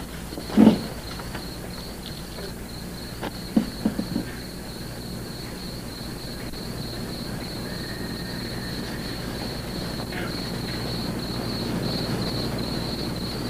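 Crickets chirring steadily in a continuous high trill, with a few short soft knocks about half a second in and again around four seconds in.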